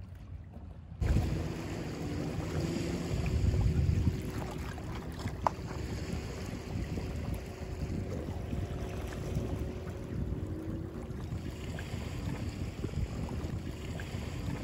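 Wind buffeting the microphone in a low rumble, with the sea in the background. It jumps up suddenly about a second in.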